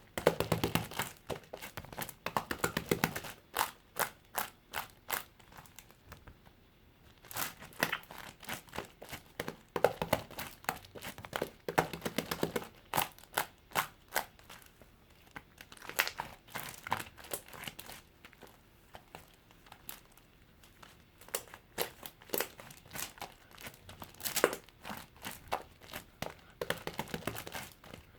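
Mint-chocolate slime being squeezed, pressed and poked by hand, giving bouts of dense crackling clicks and pops a few seconds long with short pauses between them.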